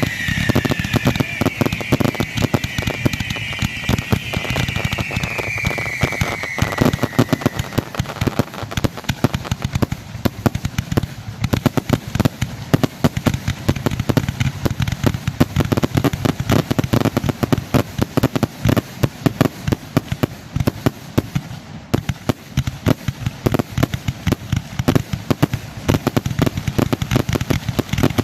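Fireworks finale: a dense, continuous barrage of rapid bangs and crackling reports with no let-up. Over the first seven seconds or so a high wavering sound rides above the bangs, slowly falling in pitch.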